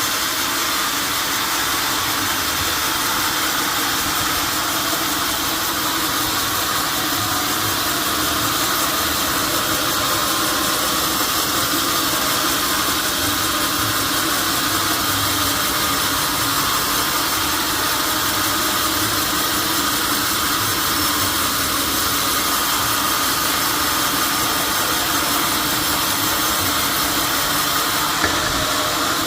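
Sawmill saw running steadily while cutting an oak log, a continuous even machine noise with no pauses.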